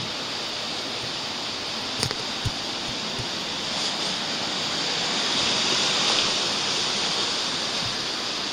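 Steady rushing noise that swells slightly midway, with two short knocks about two seconds in.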